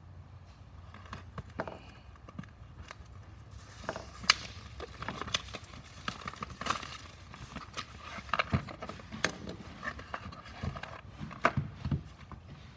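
A ToolKitRC M4Q charger being unboxed by hand: cardboard box and plastic wrapping rustling, with irregular clicks and knocks as the charger is pulled out and handled.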